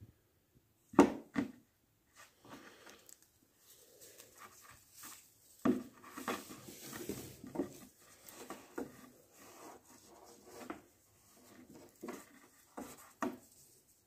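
Hands handling and tying a braided rope on a wooden board: rope rubbing and rustling, with irregular sharp knocks on the wood, the loudest about a second in.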